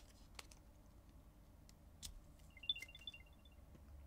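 Apple AirTag playing its short power-up chime, a quick run of faint high-pitched beeps a little past halfway: the sign that it has switched on once its battery tab is pulled. A light click comes just before it, about two seconds in.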